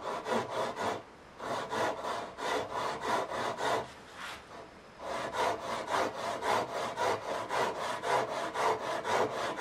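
Japanese pull saw crosscutting a tenon shoulder in a wooden block, cutting on the pull stroke along a knife-scored line. The sound is a rapid, even rasping of short strokes, pausing briefly about a second in and again for about a second around four seconds in.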